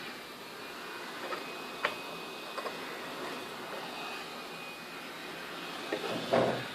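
Hot-air rework station blowing a steady hiss with a faint high whine, used for desoldering chips off a motherboard. A few light clicks come through, and a louder knock near the end.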